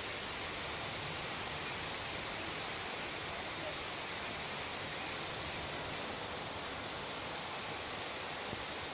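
Steady, even rushing noise of stormy weather, with faint short high chirps now and then.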